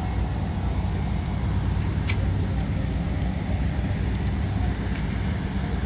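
Steady low drone of an engine running nearby, with one short sharp click about two seconds in.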